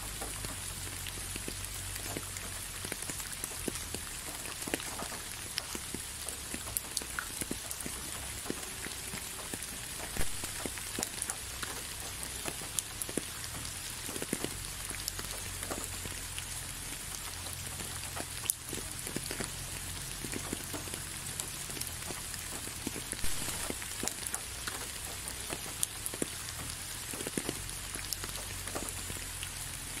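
Steady rain falling, with many separate drops tapping close by and an occasional louder drop.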